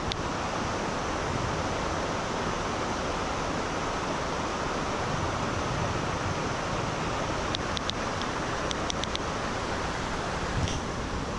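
Steady rushing of river water at a river crossing, with a handful of light clicks about eight seconds in.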